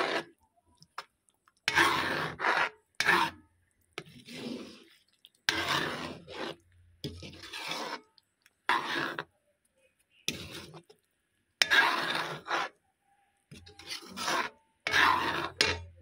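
Metal spoon stirring thick dinuguan (pork blood stew) and scraping the cooking pot, in about ten short strokes with brief pauses between them.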